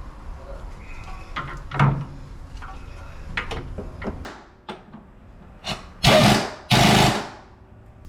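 Hand tools clinking and knocking on metal, with a sharp clank about two seconds in, then two short bursts of an air tool about six and seven seconds in, as a nut holding a bracket comes off.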